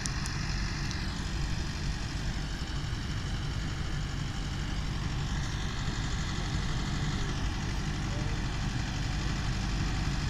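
Tractor diesel engine running steadily as it tows a beach-cleaning machine over sand, growing slightly louder as it draws closer near the end.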